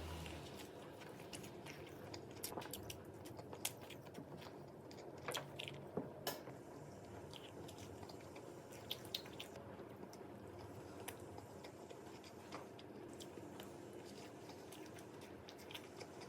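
A person chewing and biting soft, springy gijeong-tteok (Korean fermented rice cake) close to the microphone, with scattered small sharp clicks.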